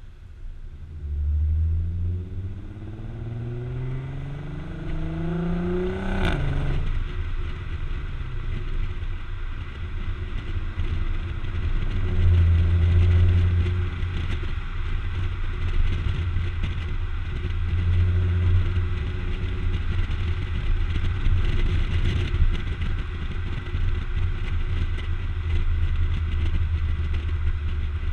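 Volkswagen Passat 3.6L VR6 exhaust through MagnaFlow mufflers, heard close at the tailpipe: the engine pulls hard with its pitch rising for about five seconds, then drops sharply at an upshift about six seconds in with a short crack. It then runs on at lower revs with a deep exhaust drone that swells a few times over wind and road hiss.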